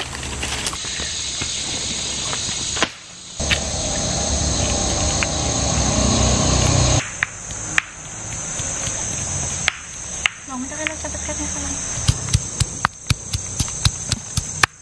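Insects chirring steadily. From about 12 seconds in, a stone pestle pounds chilies and shallots in a stone mortar: sharp knocks, about three or four a second.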